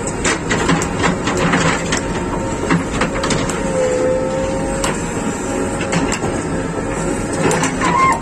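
JCB 3DX Plus backhoe loader's diesel engine running with a steady whine that dips briefly about halfway, with scattered sharp knocks and clanks.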